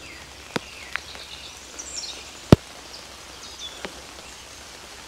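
First scattered raindrops of a beginning shower, heard as a few separate sharp ticks with one much louder tap about halfway through.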